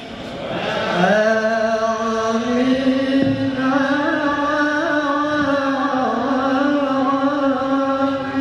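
A man's voice chanting one long, drawn-out melodic line, sliding up about a second in and then holding its notes with small ornamental wavers.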